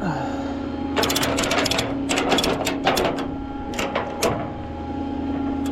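Idling flatbed tow truck giving a steady hum, with a run of quick metallic clicks and rattles between about one and four seconds in.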